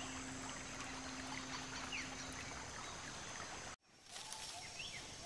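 Jungle stream running and trickling, a steady hiss with a few faint chirps over it, and a low held music note fading out in the first half. Near the end the sound cuts out for an instant, then a similar, slightly quieter forest background resumes.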